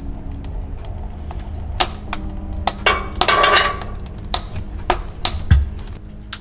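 Irregular light taps and clicks of small objects being handled, with a short rustle about three seconds in, over a low steady hum.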